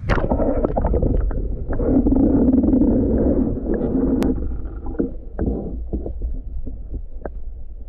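Muffled underwater sound from a camera plunged into seawater: a sudden splash, then water gurgling and rumbling against the submerged microphone, with scattered knocks and clicks, fading slightly near the end.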